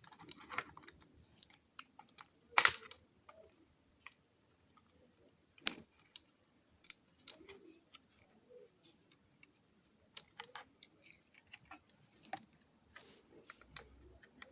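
Scattered light clicks and knocks of plastic robot-kit parts being handled and pressed into the chassis, with one sharper knock about two and a half seconds in.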